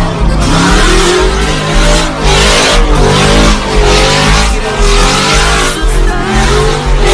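Pickup truck doing a burnout: the engine held at high revs while the rear tyres spin and squeal.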